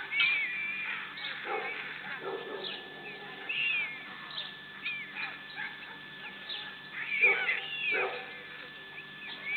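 Bird calls picked up by a webcam microphone at a stork nest: many short chirps and whistles that slide up and down in pitch, with louder, harsher cries about a second and a half in and again near seven seconds. A faint steady electrical whine from the camera runs underneath.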